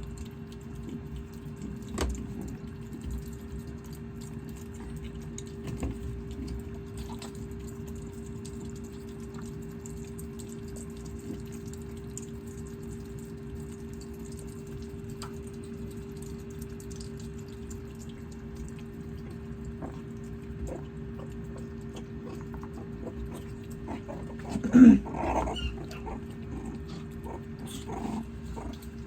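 A pet meerkat gives one short, loud growling call about 25 seconds in, then a couple of softer ones, over a steady low electrical hum with scattered small taps.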